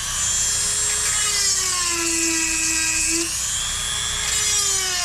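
Dremel rotary tool whining as it sharpens chainsaw chain teeth. Its pitch sags under load, jumps back up about three seconds in, then slowly sags again.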